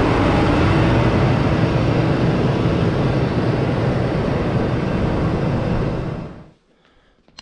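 Versatile 210 Nemesis tractor driving over and away from the camera, its diesel engine running steadily, with a deep hum under a broad rush of noise. The sound fades out quickly about six seconds in.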